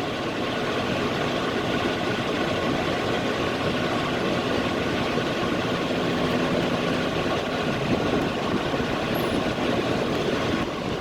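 Heavy diesel semi-truck engine idling steadily.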